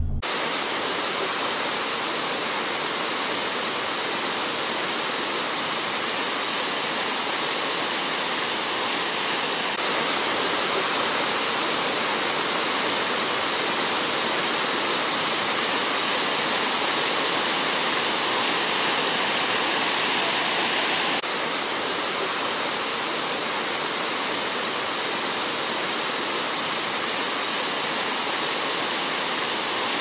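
Steady rushing of a large waterfall in heavy flow, an even hiss of falling water. It steps up slightly about a third of the way in and drops back a little about two thirds in.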